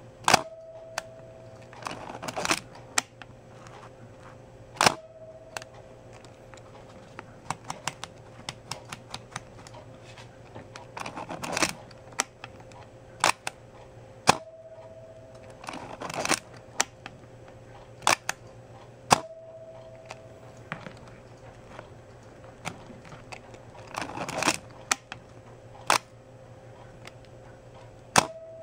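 Olympus OM-2 35mm SLR firing several times, its cloth focal-plane shutter and mirror giving sharp single clicks, with a brief faint tone after some releases. Between shots come quick rattling clusters of clicks as the film-advance lever is wound to re-cock the shutter.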